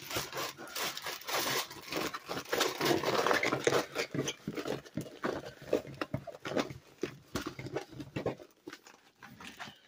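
Plastic-film-covered diamond painting canvas being handled and rolled up by hand, with dense irregular crinkling and crackling that dies down about a second before the end.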